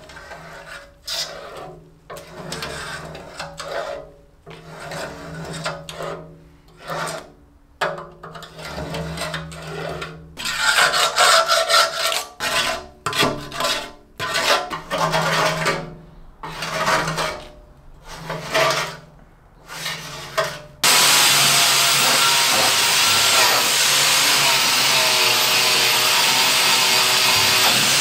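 Paint softened by stripper being scraped and brushed off the metal top of a milling machine base, in rough strokes about one a second. About 21 seconds in, an angle grinder starts suddenly and runs steadily against the metal, louder than the scraping.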